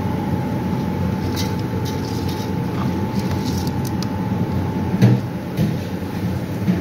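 Raw rice poured from a stainless steel bowl into a metal pot, the grains giving faint scattered ticks, with a sharp knock about five seconds in, over a steady low hum.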